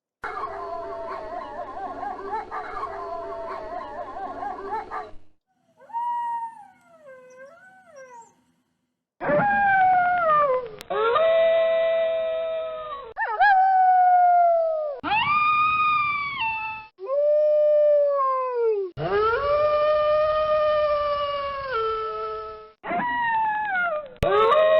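Wolves howling. First several voices overlap in a chorus for about five seconds, then come a few faint wavering howls. From about nine seconds in there is a series of loud single long howls, each rising, held, then dropping at the end, starting and stopping abruptly.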